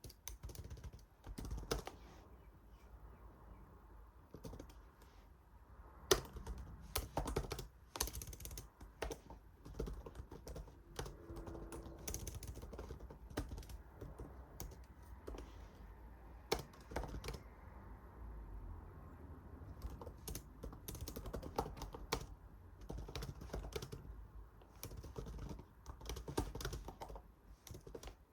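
Typing on a computer keyboard: irregular runs of keystrokes with short pauses between.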